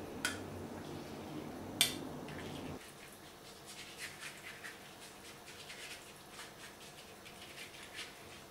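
Two sharp clinks of a glass mixing bowl, the second louder, over a low hum that cuts off about three seconds in. Then a silicone pastry brush dabs and strokes an oily butter sauce over a thin sheet of yufka pastry, making many quick, faint, soft pats.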